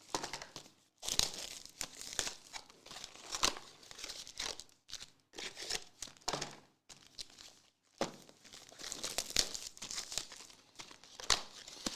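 Plastic trading-card pack wrappers being crinkled and torn open by hand, in irregular crackling bursts with sharp rips.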